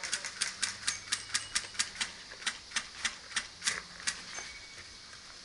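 Airsoft gunfire during a game: an irregular run of sharp clicks from electric airsoft guns and their BBs, several a second, thinning out after about four seconds.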